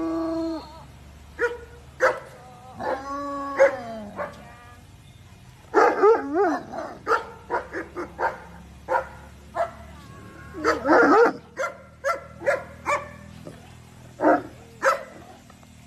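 Several large malamute-type dogs vocalizing: drawn-out, sliding howl-like calls in the first few seconds, then a run of short barks and yips with another longer call in the middle of it.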